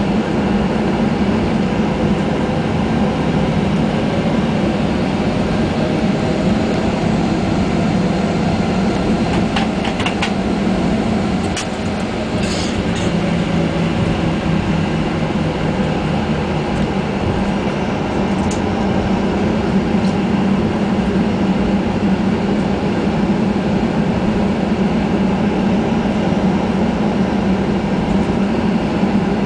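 Cabin noise of a Boeing 737-800 rolling on the ground: a steady, even drone from its CFM56 engines and the airframe, with a few light clicks and rattles about ten to thirteen seconds in.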